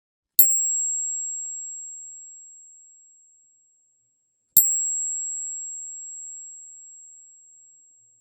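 A metal coin struck twice, about four seconds apart. Each strike is a sharp click followed by a single very high, thin ringing tone that fades out over about three seconds.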